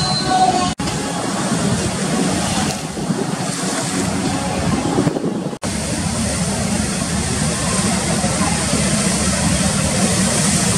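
Strong wind buffeting the microphone over rough, wave-tossed sea, with a steady low hum under it. The sound breaks off for an instant twice, about a second in and about halfway through.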